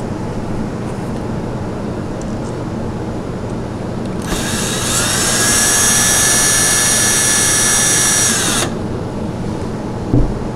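Cordless drill driving a screw into the wooden footrest rail, starting about four seconds in: the motor whine rises as it spins up, holds steady for about four seconds, and drops away as it stops. A single knock comes near the end.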